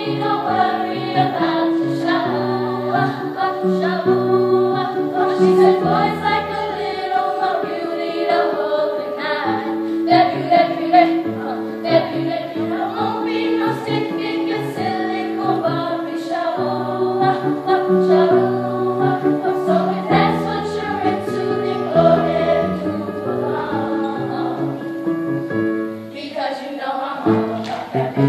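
Sixth-grade show choir singing a song.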